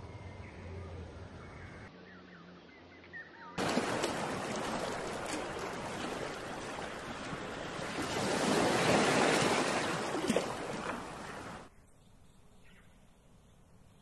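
Surf washing on a beach, a steady rush that swells louder for a couple of seconds in the middle and cuts off abruptly near the end. Before it, a few clear whistled bird notes.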